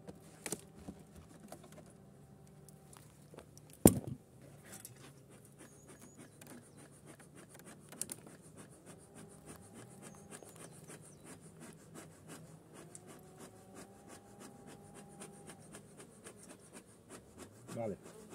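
Honeybees buzzing at an opened Langstroth hive: a steady low hum, with single bees flying close by that rise and fall in pitch. About four seconds in comes one sharp crack as the hive lid comes off, and scratching and handling noises run throughout.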